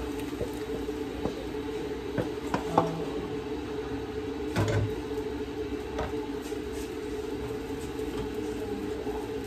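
Wooden spatula scraping and knocking against a non-stick frying pan in a few short clacks, the sharpest nearly three seconds in, over a steady low hum.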